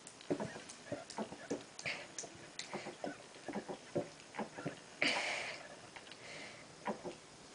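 Someone gulping down a drink: a string of small swallowing clicks and gulps. A short breathy hiss comes about five seconds in.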